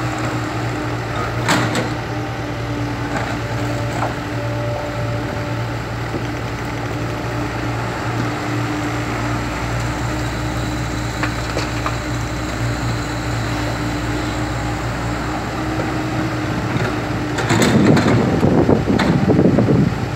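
Komatsu PC70 excavator's diesel engine running steadily, with a sharp knock about a second and a half in. Near the end come loud rough bursts of noise as the machine works broken concrete slabs.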